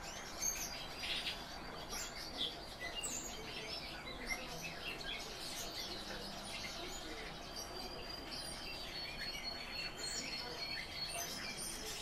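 Birds chirping and twittering indoors, many short high calls scattered throughout, with a thin steady high note held in the second half.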